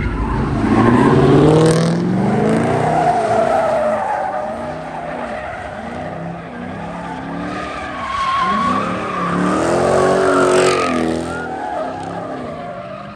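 A Dodge Charger Hellcat's supercharged V8 revs hard as it pulls away near the start. Then engines rev and tyres screech as U-Haul pickup trucks do burnouts and slide, with a second hard rise in revs about eight to eleven seconds in.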